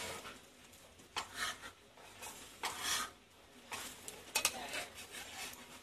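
Cookware sounds from a frying pan: a clank, then a spatula scraping against the pan in short, irregular strokes while a bánh xèo (Vietnamese crispy pancake) is worked in hot oil.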